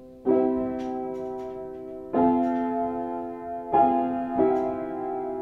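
Piano improvisation: four slow chords, each struck firmly and left to ring and fade, with a few short high notes over the first.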